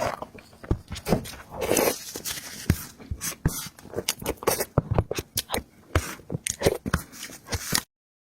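Close-miked eating sounds: wet chewing and mouth smacking on soft, sticky dough and cake, in quick irregular clicks. It cuts off abruptly near the end.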